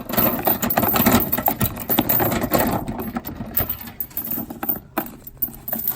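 Metal chain rattling and clinking in irregular, rapid clatter as it is run through a pickup truck bed's tie-down points.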